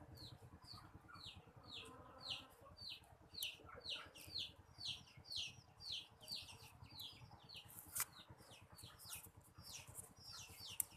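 A bird chirping faintly over and over, a steady run of short, downward-sliding chirps about two to three a second, with a single sharp click about eight seconds in.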